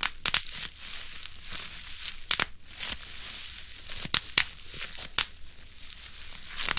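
Plastic bubble wrap being crushed by hand: the sheet crinkles constantly, and individual bubbles pop as sharp snaps at uneven moments, about half a dozen loud ones.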